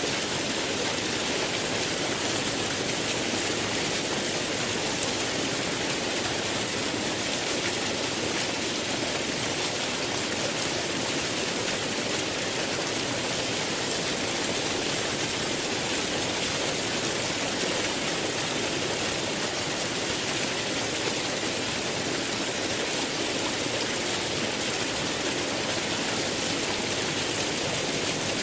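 Flowing water rushing steadily and evenly, without change.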